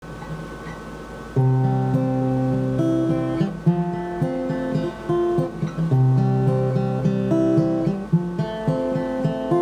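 Acoustic guitar playing a chord intro: quieter for about the first second and a half, then louder strummed chords.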